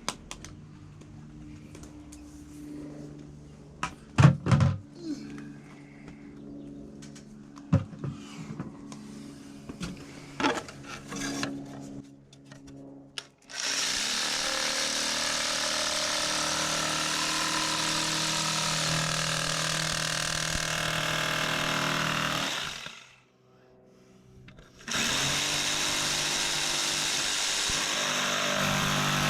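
Scattered knocks and clicks of handling, then a handheld power tool runs steadily at high speed, cutting a small hole for a toggle switch; it stops for a couple of seconds and starts again near the end.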